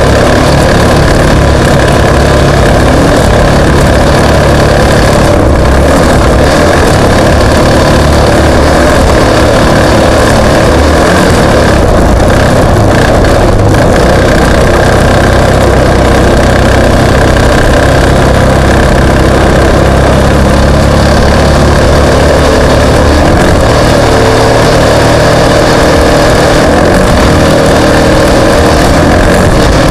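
Racing vehicle engines running loudly and steadily, with no let-up.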